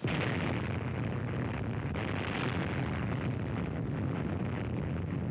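Atomic bomb airburst: a blast that starts abruptly and carries on as a steady, dense rumble, heaviest in the low end.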